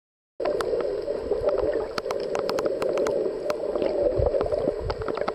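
Underwater sound picked up by a snorkeler's camera: a steady muffled water noise with many scattered sharp clicks and crackles, starting suddenly about half a second in after silence.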